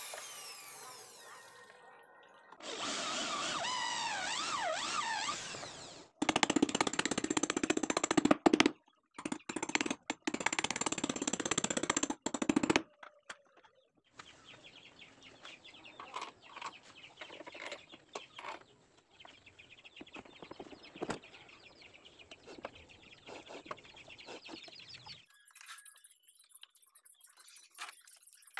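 Cordless drill boring into the boat's wooden engine bed, running in several bursts that stop abruptly. About halfway through it gives way to quieter light clicks and knocks, with chickens clucking in the background.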